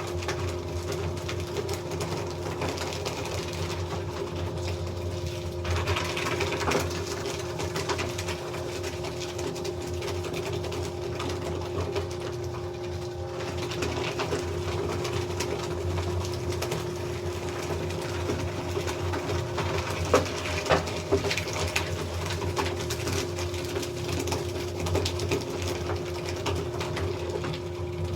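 Electric paper shredder running with a steady motor hum while its cutters crunch through sheets of paper, with a few sharper crackles about twenty seconds in.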